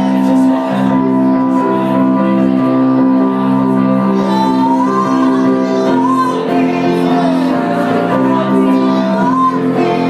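A live band playing, loud and steady, with held chords and a voice singing over them from about four seconds in.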